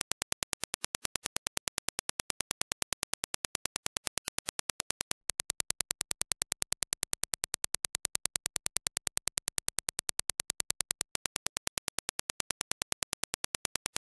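A rapid, even train of sharp clicks, about ten a second: Dirac test impulses for measuring headphone transient response. About five seconds in it switches from the reference impulses to the same train as reproduced by the Audeze MM-100 planar-magnetic headphones on a measurement dummy head, slightly louder. At about eleven seconds it switches back to the reference.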